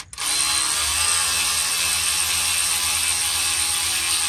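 A cordless power driver runs steadily with a 5/16 Allen bit, spinning the differential cover bolts down snug. The whir starts abruptly and cuts off abruptly near the end.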